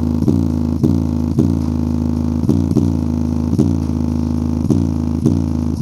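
JBL Flip 5 portable speaker's woofer playing a bass-boosted track near full volume in low frequency mode. Deep bass notes hit about twice a second.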